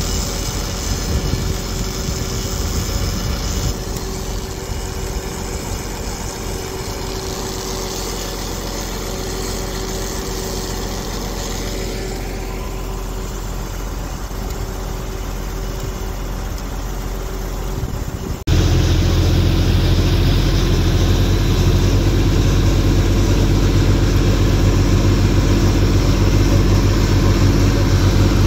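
Vehicle engines running steadily. About two-thirds of the way through, the sound cuts suddenly to a louder, deeper engine that keeps running steadily.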